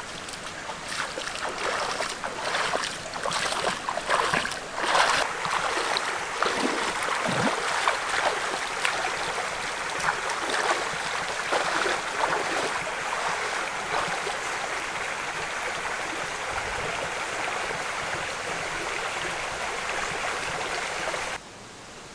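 Bare feet wading through a shallow stream, water splashing and sloshing around the legs with each step, then settling into a steady rush of water. The sound drops off suddenly near the end to a much quieter background.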